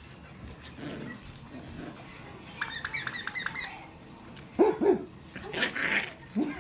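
Toy fox terrier giving short barks, two quick ones about four and a half seconds in and more just after, while playing with a toy. A little before, a rapid run of high squeaks.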